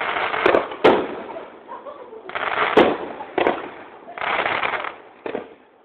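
Aerial fireworks going off: three sharp bangs, the loudest about a second and about three seconds in, with stretches of rough rushing noise between them.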